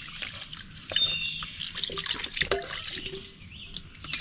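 Dishwater splashing and dripping in a shallow collapsible plastic tub as a bowl is washed and rinsed by hand, with a sharp knock near the end.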